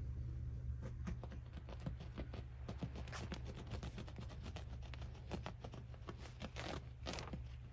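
Sharp knife cutting through a mattress's quilted fabric cover and padding: a run of small crackly snips and rasps, with a few louder rasping strokes about three seconds in and near the end.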